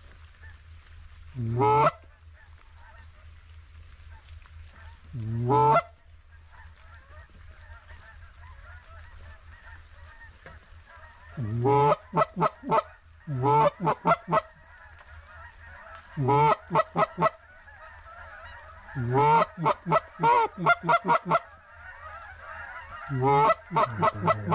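Geese honking: loud, close honks that rise in pitch, first singly, then from about halfway in as quick runs of several honks. Under them is the steady chatter of a distant goose flock.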